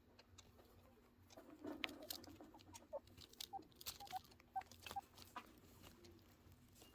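Baby angora chinchillas playing: faint, quick pattering and scrabbling of small feet with a few short squeaks, busiest through the middle seconds.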